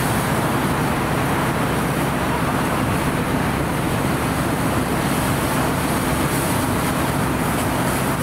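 Steady drone of a fire engine running its pump to supply a charged hose line, mixed with the hiss of the water stream from the nozzle.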